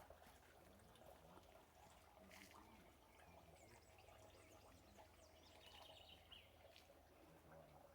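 Near silence: faint outdoor ambience with a distant bird trilling briefly about six seconds in.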